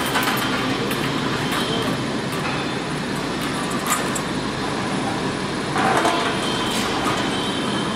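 Semi-automatic four-cavity PET bottle blow moulding machine running: a steady mechanical noise with a few sharp clicks, and a louder rush of noise about six seconds in.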